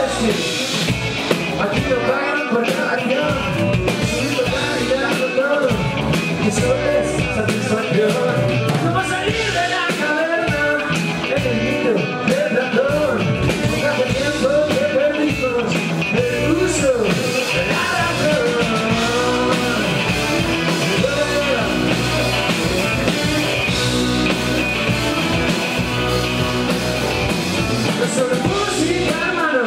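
Live rock band playing loudly: electric guitars and a drum kit, with the lead vocalist singing over them throughout.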